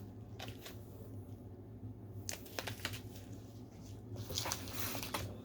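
Light rustling and small clicks and knocks of packaged items and paper being handled and moved about, more of them near the end, over a faint low hum.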